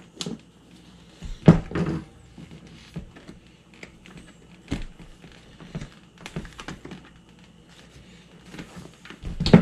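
Hands handling a motorcycle helmet on a table: scattered knocks and rubbing against the hard plastic shell. Two louder bumps come about a second and a half in and near the end.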